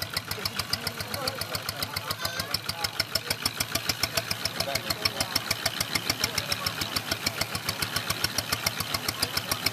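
Small open inboard boat engine running steadily under way, an even rapid knocking beat of about eight strokes a second.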